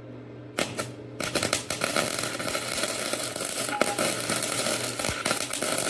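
Electric arc welding: after a low steady hum, the arc strikes about half a second in with a couple of sharp cracks, then runs as a continuous crackling sputter.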